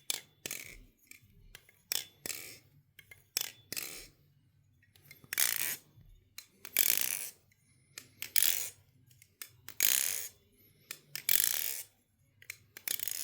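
Bite Blades Titan balisong being flipped: its 7075 aluminium handles clack sharply against each other and the tang with a subtle metallic ring, between longer swishing passages, over and over at an uneven pace.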